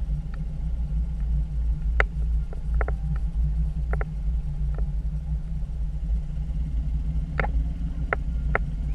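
Small outboard motor running steadily with a low rumble, just after starting. Several short sharp clicks and knocks sound over it.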